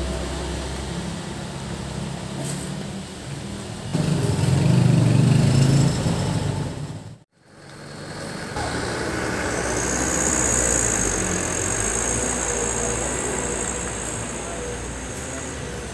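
Diesel engine of a Mitsubishi Canter HD 125 PS dump truck, loaded with six cubic metres of river sand, pulling away. It revs harder about four seconds in and cuts out abruptly at an edit near seven seconds. It then runs on steadily as the truck drives off.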